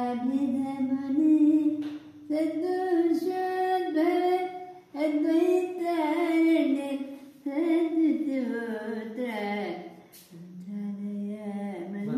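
An elderly man singing a Kannada Haridasa devotional song unaccompanied, in a fairly high voice. He holds long, wavering notes in phrases, with short breaks for breath between them.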